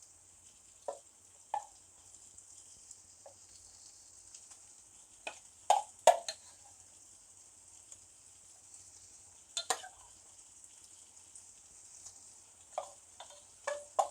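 Crumbled shark meat frying in oil in a pan, a steady faint sizzle, while it is stirred, with about ten scattered knocks of the stirring utensil against the pan, the loudest a pair about six seconds in.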